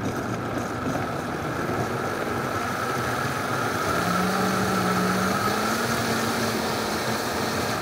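High-powered countertop blender running steadily, puréeing a thick char siu marinade of fermented red bean curd, rice wine, garlic and ginger. The motor's note climbs a little about halfway through.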